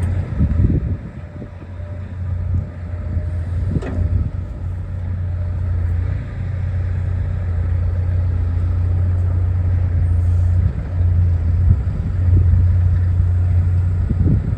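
Case CX245D SR excavator's diesel engine running steadily with a low, even hum. There is a single sharp click about four seconds in.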